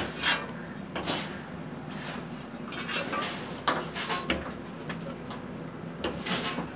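Scattered clatter and clinks of metal kitchen utensils and cookware, a few sharper knocks among them, over a steady low hum.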